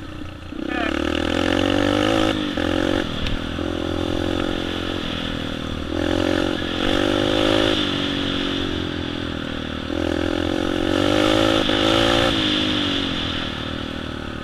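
Yamaha TTR-125 dirt bike's single-cylinder four-stroke engine through an FMF exhaust while riding a trail, revving up and easing off again and again, its pitch climbing and then dropping with short breaks in between.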